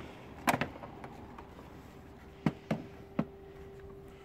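Plastic air box parts being handled: four short sharp clicks and knocks, the loudest about half a second in, then three close together around three seconds in, over a faint steady hum.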